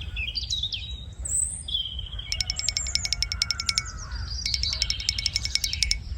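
Songbirds chirping, then two rapid trills of quickly repeated high notes, each lasting about a second, over a steady low rumble.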